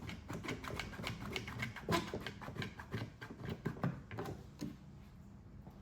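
Rapid, irregular clicking and clattering of hard objects being handled, several clicks a second, dying away after about four and a half seconds.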